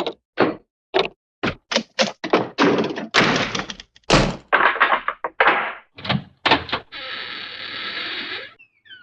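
Hanna-Barbera cartoon door sound effects: a rapid string of short knocks and thunks, several of them longer slams with a ringing tail. Near the end comes a steady rushing sound lasting about a second and a half.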